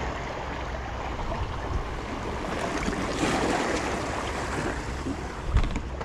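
Sea waves washing against shoreline rocks, with wind rumbling on the microphone; a wave surges about three seconds in. A low thump comes near the end.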